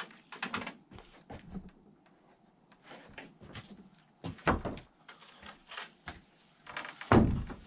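Lumber boards knocking and clunking against the wooden rafters as they are handled and set in place, with a heavier thump about four and a half seconds in and the loudest thump near the end.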